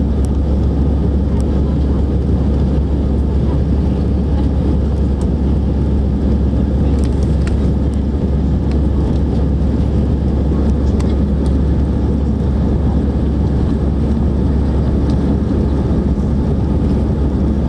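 Steady, loud jet airliner cabin noise in flight: engine and airflow rumble heard from inside the passenger cabin, strongest in the low range and unchanging throughout.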